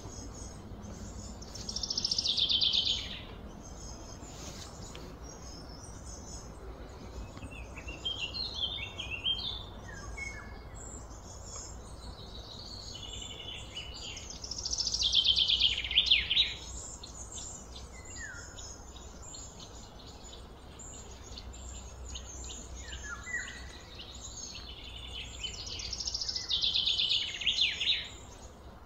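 Birds calling: a loud, high, falling song phrase about every twelve seconds (near the start, in the middle and near the end), with softer chirps between, over steady low background noise.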